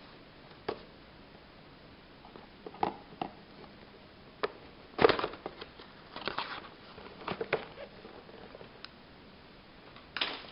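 A cardboard toy box with clear plastic windows being handled and opened: scattered taps, clicks and crinkles of card and plastic, the loudest about five seconds in.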